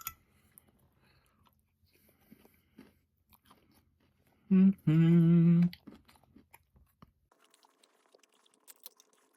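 A person chewing a mouthful of crunchy salad, with faint crunches and mouth sounds, and about four and a half seconds in a loud, wavering "mmm" of enjoyment lasting about a second.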